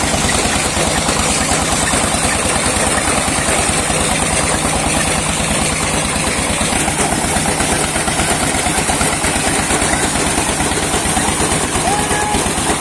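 Motorised paddy thresher running steadily under load as rice sheaves are fed into its drum: an engine's fast, even beat with a constant high whir from the spinning threshing drum.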